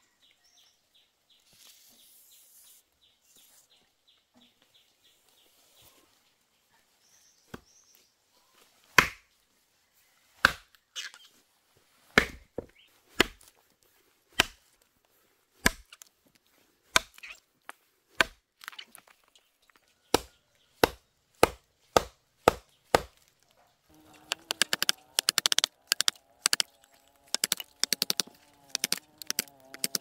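Chopping with a blade on wood: single sharp strikes at first, roughly one a second, which quicken into rapid chopping about three-quarters of the way through, with a steady low drone under it.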